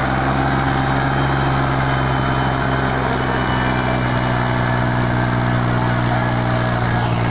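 Tractor diesel engine running steadily under heavy load, pulling a rotavator through the soil with a dozen men riding on it as added weight.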